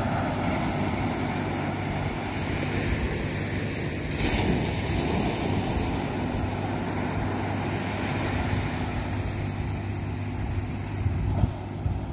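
Ocean surf breaking and washing up the beach, with wind buffeting the microphone in a steady low rumble. A few louder knocks near the end.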